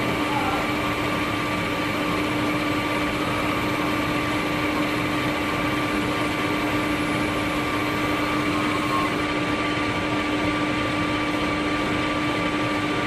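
Lathe running steadily: a constant machine hum with a steady low tone and fainter higher tones, unchanging throughout.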